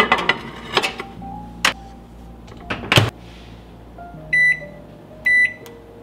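A metal baking pan clattering as it is slid onto the rack of a Toshiba combination microwave oven, then two knocks as the oven is shut. Near the end the oven's control panel gives two short beeps as the temperature is set.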